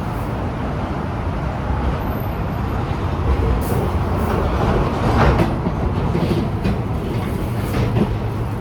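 Steady rumble of road traffic, swelling louder about five seconds in.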